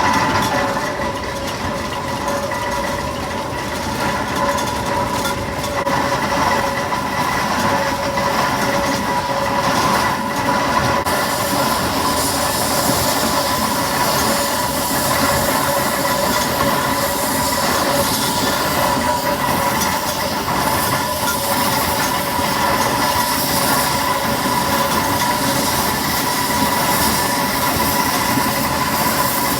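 Fowler BB1 steam ploughing engine running on the road: a continuous mechanical clatter with a steady whine held throughout, and more hiss from about eleven seconds in.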